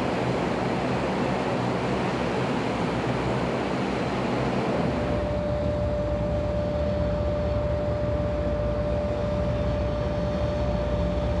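Aircraft engine noise at an airfield. A steady rushing noise gives way about five seconds in to a low engine rumble with a steady hum held on one pitch.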